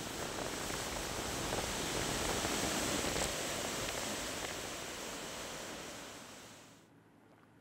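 Floodwater rushing through a river swollen by the release from a full dam: a steady, even rush that swells slightly about two to three seconds in and fades away near the end.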